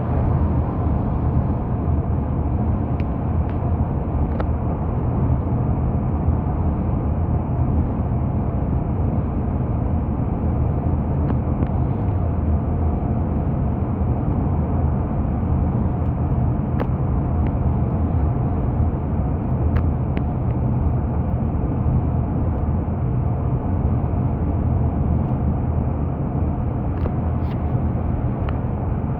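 Steady low road and engine rumble inside a moving car, as a dashcam picks it up, with a few faint ticks.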